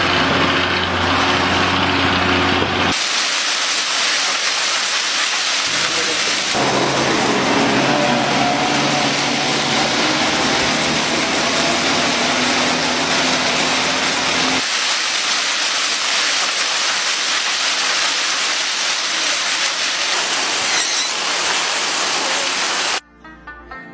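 Loud, steady rushing noise, like rain or wind on the microphone, changing abruptly at each cut between outdoor clips. Under it a low vehicle engine hum is heard for the first three seconds and again from about 6 to 15 seconds.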